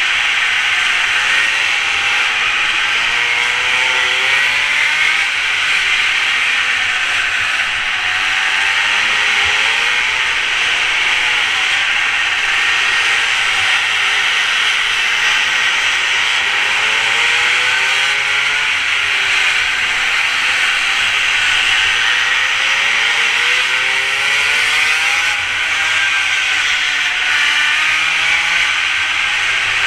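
Mini moto's small engine revving up and falling back again and again as it is ridden round a track, its pitch rising and dropping every few seconds, under a loud steady hiss of rushing air.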